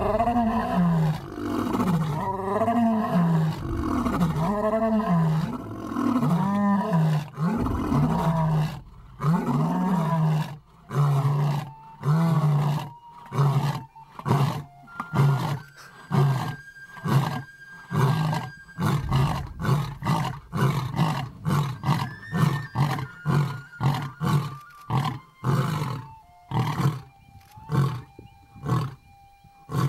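Two male lions roaring together: long, full roars over the first ten seconds or so, then trailing off into a long series of short grunts, about one a second, that grow fainter.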